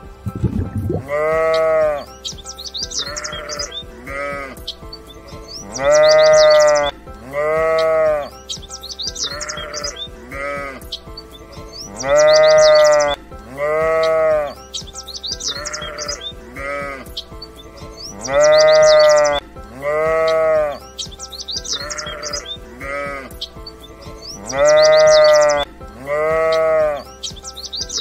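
Sheep bleating over and over, with long calls that rise and fall in pitch. The same run of bleats and high chirps repeats about every six seconds, as from a looped recording.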